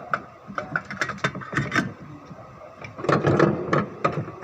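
A quick, irregular series of sharp mechanical clicks and knocks, denser about three seconds in.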